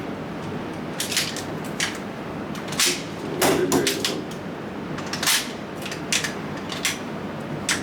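Pistol shots: about ten sharp cracks fired at an uneven pace, from under a second to over a second apart.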